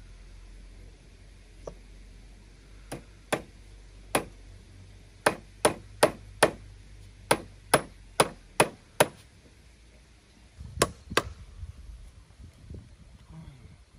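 A hand tool striking wood or bamboo: about fifteen sharp, separate blows at an uneven pace. The densest run comes in the middle, and a last pair of blows falls near the end.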